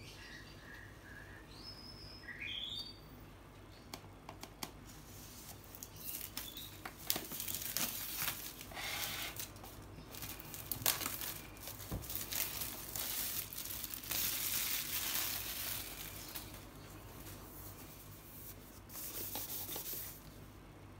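Plastic shrink-wrap being torn and peeled off an iPad box, crinkling on and off for several seconds.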